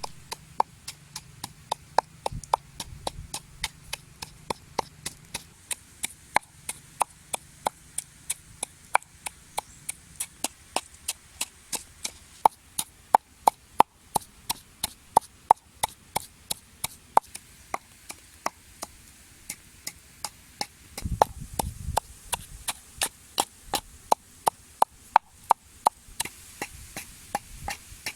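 Knife chopping steadily on a wooden cutting board, about three sharp strokes a second without a break. A low thud-like rumble comes in briefly a little past two-thirds of the way through.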